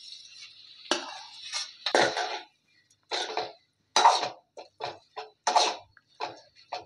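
Spatula scraping and knocking against a steel kadai as okra pieces are stirred into tomato masala, in short irregular strokes that come quicker near the end.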